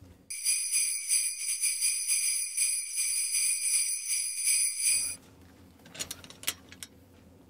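Sleigh bells on a wooden handle being shaken in a continuous jingle, stopping suddenly about five seconds in.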